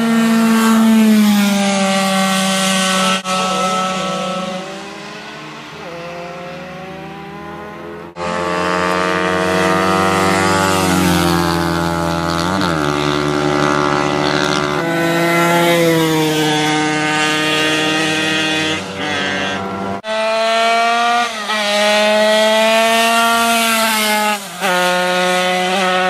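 Motorcycle engines revving hard as the bikes pass at speed, the pitch climbing and dropping with throttle and gear changes, two or more bikes overlapping at times. The sound breaks off abruptly twice, once about a third of the way in and again near the three-quarter mark.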